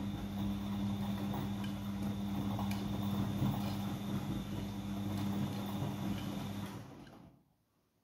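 Siemens iQ100 front-loading washing machine tumbling laundry in its main wash: a steady motor hum with the swish of wet washing. About seven seconds in it dies away as the drum stops turning.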